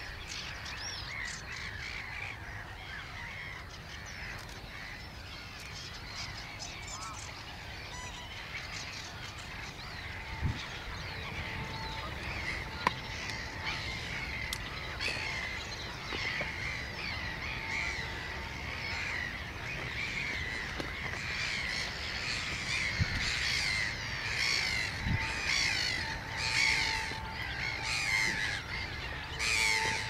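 Dawn chorus: many wild birds chirping and calling at once, a dense overlapping mix of quick high chirps and warbles that grows busier and louder in the second half. A short sharp click sounds near the middle.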